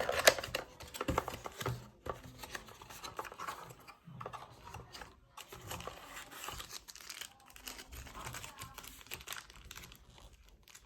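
Packaging crinkling and rustling as the contents are lifted out of a small cardboard box, with a cluster of sharper crackles and clicks in the first two seconds and quieter intermittent rustling after.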